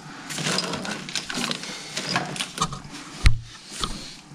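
Handling noise of hands working on a car's engine wiring harness: rustling and clicking, with one loud thump about three seconds in.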